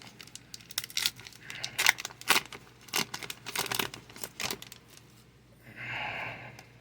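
Foil Pokémon booster pack wrapper being torn open and crinkled, a quick run of sharp crackles for about four and a half seconds, followed by a brief softer rustle near the end.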